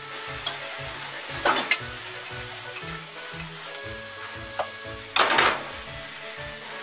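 Shrimp, garlic chive and egg stir-fry sizzling in a frying pan as it is stirred and tossed with cooking chopsticks, with two brief louder surges about a second and a half in and again about five seconds in.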